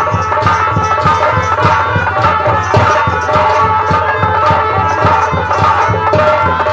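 Nautanki stage-band music: a dholak beats a fast, even rhythm of about five strokes a second under a held melody line.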